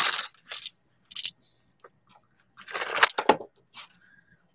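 Small polished stones crunching and rattling against each other as a bag of them is handled, in a few short irregular bursts: a loud one at the start, a brief one about a second in, and a cluster around three seconds in.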